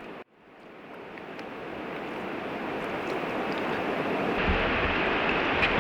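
Steady rush of flowing river water, fading in from a brief silence and growing louder over the first few seconds.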